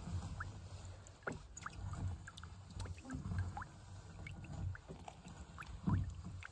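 Water dripping and trickling off a gill net as it is hauled up by hand over a boat's side, with small drops plinking irregularly into the sea over a low rumble.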